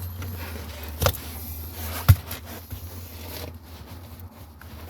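Two sharp strikes about a second apart, the second louder: a drone's lithium-polymer battery pack being hit to puncture it.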